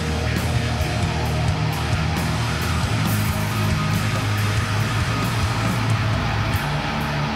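Heavy instrumental rock with distorted electric guitar over sustained bass notes; the bass line shifts to a new note near the end.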